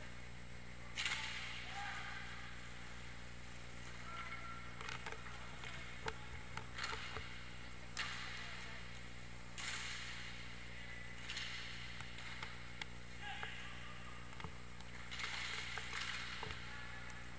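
Inline hockey play on a rink floor: repeated short bursts of skate wheels rolling and scraping, with a few sharp clicks of sticks or puck, over a steady low hum.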